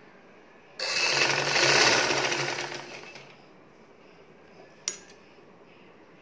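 Vidya sewing machine stitching a short seam through cotton fabric: a fast run of needle strokes starts abruptly about a second in and dies away after about two seconds. A single sharp click follows near the end.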